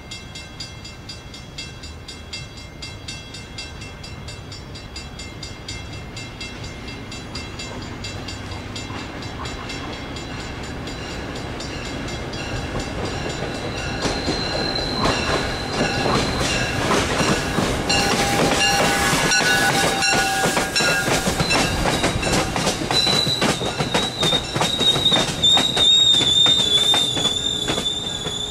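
MBTA commuter rail train rolling into the station, growing steadily louder as it nears. Wheels click over the rail joints, then a high, wavering squeal rises near the end as the train brakes to a stop.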